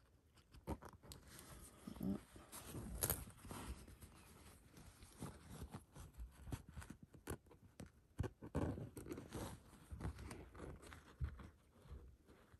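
Faint hand-sewing noise close up: quilted fabric rustling and scratching under the fingers as needle and thread are pulled through, with scattered small clicks and a few louder rustles.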